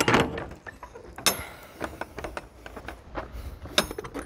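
Scattered metallic clicks and knocks, with a little jingling, as the rear door latch of a truck box is unlocked and worked. The loudest knock comes a little over a second in, and a quick run of small clicks comes near the end.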